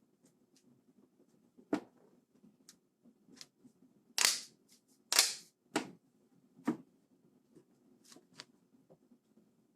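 Sharp clicks and knocks of keyboard parts being handled and fitted back together, about eight in irregular succession, the loudest two about four and five seconds in.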